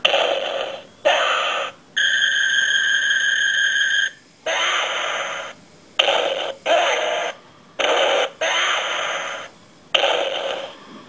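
Ultraman toy's electronic sound effects playing through its small built-in speaker: about nine short clips, each cut off and followed by the next. One is a steady beeping tone held for about two seconds.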